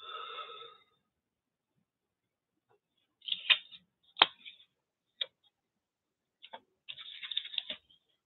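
Red-handled scissors and paper handled on a cluttered worktable: a short rustle at the start, a few sharp clicks and knocks as the scissors are picked up, then a quick run of snipping as the scissors cut paper near the end.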